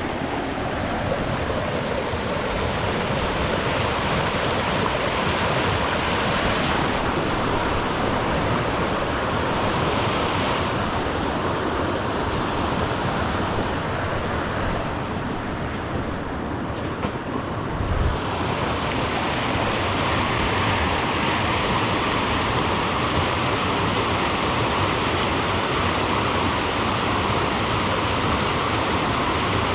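Creek rapids rushing steadily in a constant hiss of water, with a brief low thump about two-thirds of the way through.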